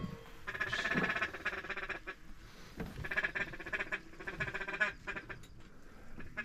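Ducks quacking in two rapid runs of calls, the first about half a second in and the second about three seconds in.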